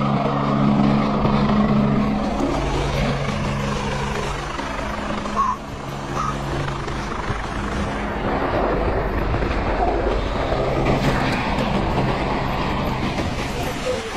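Wind rushing over a helmet-mounted camera microphone and mountain-bike tyres grinding through snow during a fast descent, with a steady low hum that drops out a few times.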